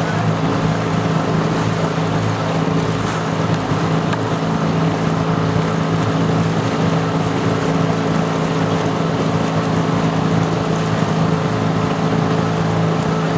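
A small motor launch's engine running steadily at an even pace, heard from on board.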